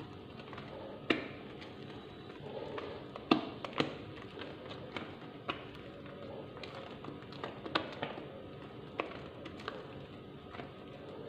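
Silicone spatula folding a whipped cream and peach purée mixture in a stainless steel bowl, giving irregular light taps and clicks as it knocks against the bowl's sides and rim.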